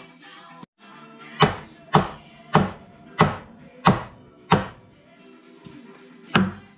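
Hammer blows: six sharp strikes in an even run of a little under two a second, then one more about two seconds later, over background music.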